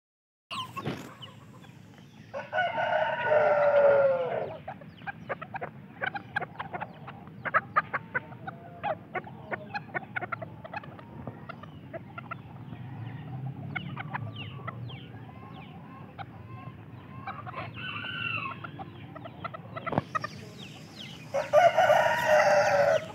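Serama rooster crowing twice, once about two seconds in and again near the end, each crow ending with a falling tail. Short sharp calls and clicks come between the crows.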